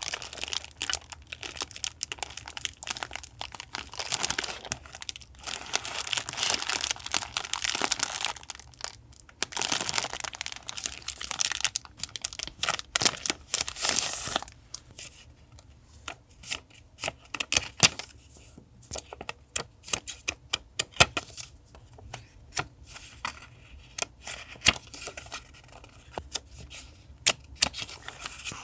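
Paper and packaging being handled: two long stretches of continuous crinkling and rustling in the first half, then scattered light taps and small rustles.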